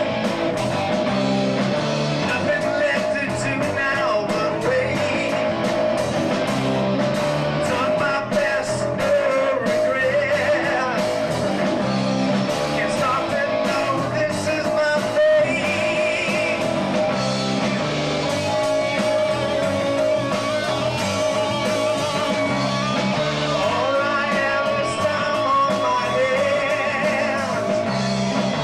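A rock trio playing live: electric guitar, electric bass and a drum kit keeping a steady beat, with a sung vocal over them.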